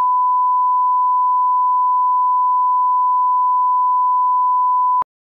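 Broadcast line-up test tone of a bars-and-tone leader: a steady, single-pitched beep that cuts off suddenly with a click about five seconds in.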